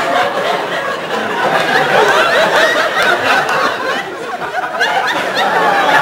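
Studio audience laughing, many voices overlapping in a long, continuous wave of laughter.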